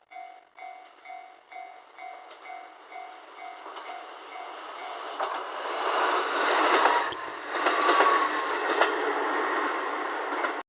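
Japanese level-crossing alarm bell dinging about twice a second, fading under the noise of a train passing over the crossing. The train builds from about four seconds in and is loudest in the second half, with a few wheel clacks over rail joints.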